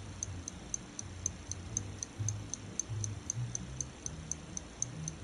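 Fast, even clock ticking, about four ticks a second, over low pulsing music.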